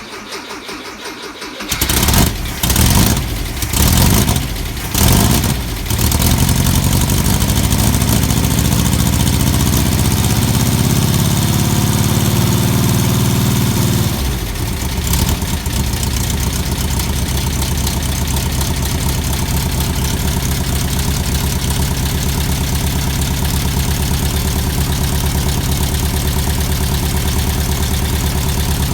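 Freshly rebuilt 1641cc Volkswagen air-cooled flat-four engine on its first start: it is cranked, catches and runs in uneven surges for a few seconds, then runs steadily at a fast idle. About halfway through, the speed drops and it settles into a steady idle.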